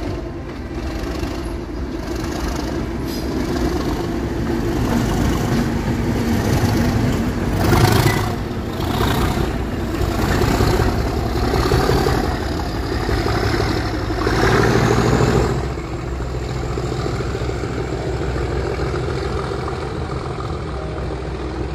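A diesel train passing close by, its engine and wheels making a steady rumble that is loudest about eight seconds in and again around fifteen seconds.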